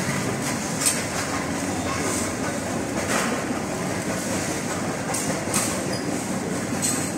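Shopping trolley wheels rolling and rattling over a tiled supermarket floor, with a few sharp clatters along the way.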